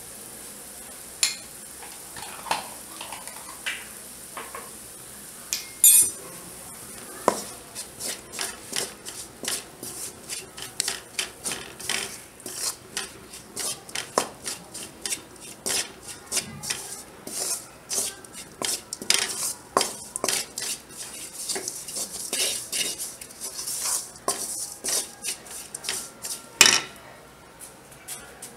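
A spatula stirring and scraping chilli and turmeric powder into fried onions in a metal pan. A few separate knocks come first, then quick scraping strokes about two or three a second for some twenty seconds, with a sharp knock against the pan near the end.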